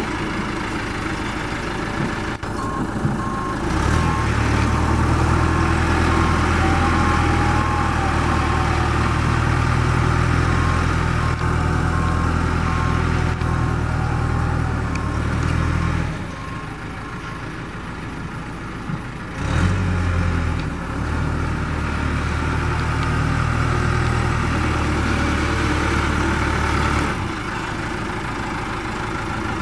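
John Deere 310C loader backhoe's diesel engine running. It picks up to a louder, heavier note about four seconds in, drops back near idle at about sixteen seconds, rises again around twenty seconds and settles back near the end.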